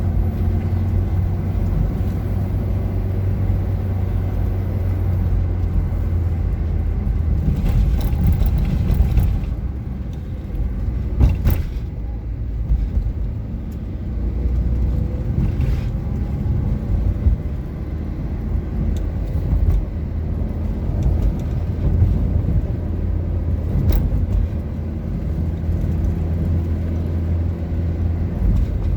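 Car engine and road noise heard from inside the cabin while driving, a steady low rumble with a few brief knocks.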